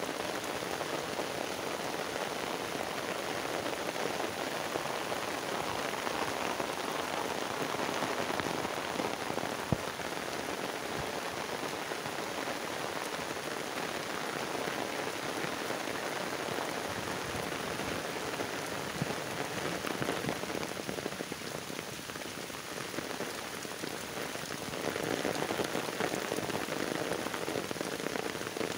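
Heavy rain falling steadily on shallow floodwater, mud and water-hyacinth leaves, a dense even hiss of drops. One sharp tap stands out about ten seconds in, and the rain eases slightly before growing heavier again near the end.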